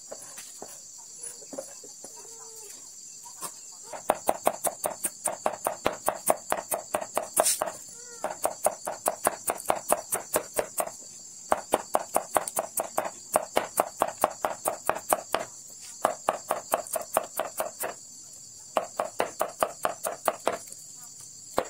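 Rapid chopping of a large kitchen knife through bitter melon onto a wooden cutting board, about five strokes a second in runs with short pauses, starting about four seconds in. A steady high insect hum sits underneath.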